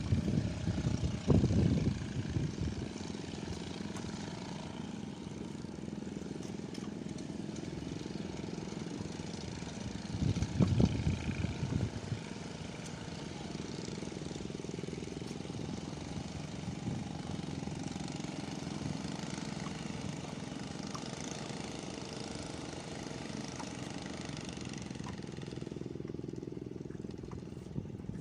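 Strong wind buffeting the microphone: a steady rushing noise with heavy low gusts in the first two seconds and again about ten seconds in.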